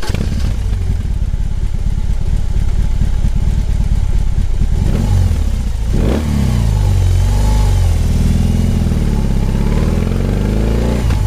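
Motorcycle engine running with a rapid, even beat. About halfway through it is revved up and down several times.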